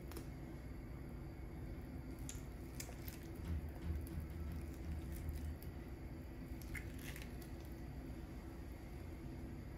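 Spoon scooping scored mango cubes off the skin: soft, wet squishing with a few light clicks of the spoon.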